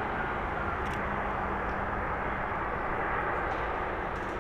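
Boeing 777F freighter's GE90 engines running as the aircraft rolls out on the runway after touchdown: a steady, even rumble.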